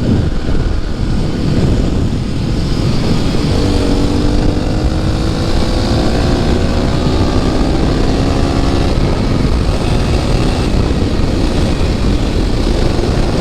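Yamaha WR dual-sport motorcycle being ridden, its engine note rising steadily for several seconds in the middle, under heavy wind noise on the microphone.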